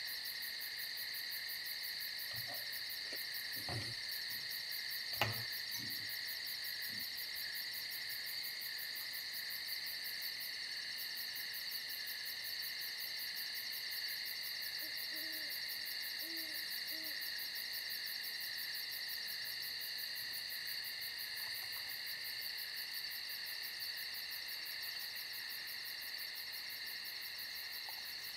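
A steady insect chorus: a high, continuous chirring with a fast even pulse. Two sharp clicks come about four and five seconds in.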